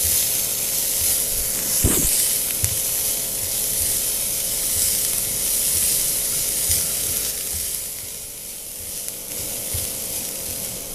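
Chopped onions, green chilli and garlic sizzling in a little oil in a nonstick frying pan, stirred with a spatula that scrapes and taps the pan now and then. The onions are being fried until they turn pinkish, and the sizzle eases slightly about eight seconds in.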